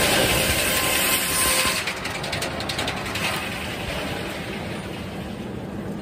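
A 56-inch circular headsaw cuts through a log with a loud, even noise until the cut ends about two seconds in. A burst of rattling clatter follows, then the steady running of the carriage and mill machinery.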